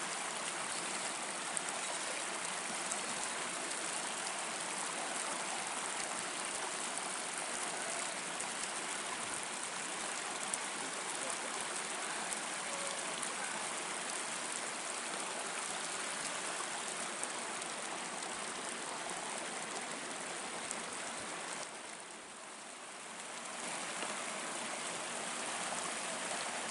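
Steady rushing of water, an even hiss without tones or knocks, that briefly softens about 22 seconds in before coming back.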